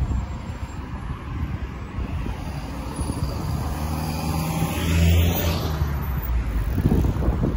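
Road traffic on a multi-lane road: a steady rumble of engines and tyres, with one car passing close about five seconds in, its engine hum and tyre hiss swelling and fading.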